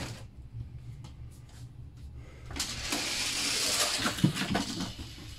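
Hot Wheels die-cast cars rolling fast down orange plastic track and through the loops: a rushing rattle of about a second and a half from about halfway in, ending in a few sharp clacks as the cars hit the end of the track.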